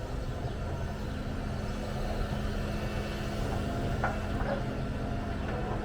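Heavy diesel engine of an excavator running steadily with a low rumble and a constant hum. A couple of faint knocks come about four seconds in.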